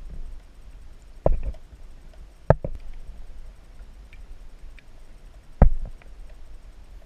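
Muffled sound through a camera held under the water: a low rumble of water with three sharp knocks, about a second in, at two and a half seconds and near five and a half seconds, and a few faint ticks. The knocks come from handling at the kayak's side while a walleye is held at the surface.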